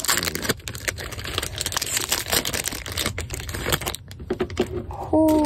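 Baseball card pack wrapper crinkling and tearing as it is opened by hand: a rapid run of small crackles and clicks that thins out about four seconds in.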